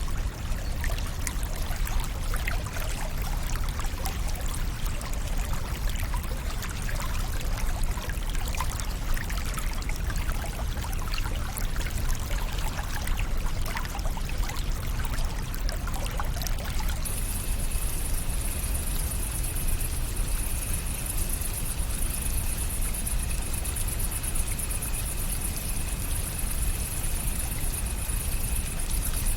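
Steadily flowing, splashing water with a deep rumble underneath. About halfway through, a steady high-pitched whine joins it and holds.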